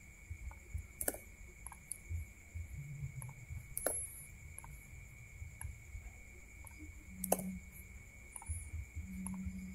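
Scattered clicks of a computer mouse, the sharpest about a second in, near four seconds and after seven seconds. Under them runs a faint steady high-pitched electrical whine in the recording.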